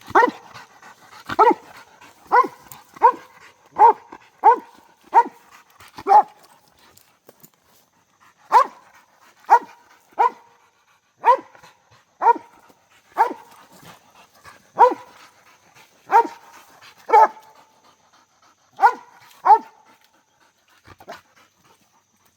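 A squirrel dog barking steadily at a tree, roughly one bark a second, the sign that it has treed or is trying to tree a squirrel. The barking breaks off for about two seconds after the first eight barks, resumes, and stops a couple of seconds before the end.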